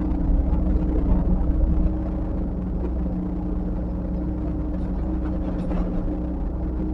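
Diesel engine of heavy earthmoving equipment running steadily with a low, even drone. It eases slightly about two seconds in.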